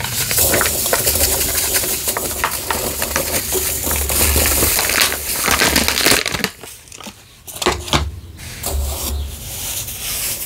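Foil-lined packet crinkling and rustling as drinking chocolate powder is shaken out of it over blocks of gym chalk. After a short lull past the middle, hands start crunching and crumbling the soft gym chalk blocks in a bamboo bowl.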